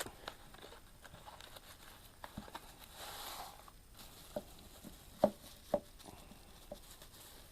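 Packaging opened by hand. There are scattered light clicks and taps, with a short crinkling rustle about three seconds in.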